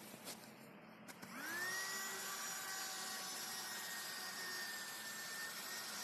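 Mini USB vacuum cleaner's small motor switched on about a second in, its pitch rising quickly to a steady high whine over a rush of air.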